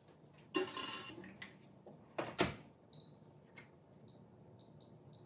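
A baking stone scraping as it slides into a microwave, the door shutting with two sharp knocks, then five short high beeps from the keypad as the cooking time is set.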